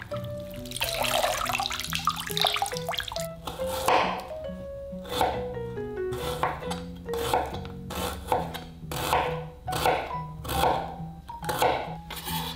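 Water sloshing as enoki mushrooms are rubbed clean by hand in a glass bowl of water, then a kitchen knife slicing a red onion on a wooden cutting board, a crisp cut about twice a second. Background music plays underneath.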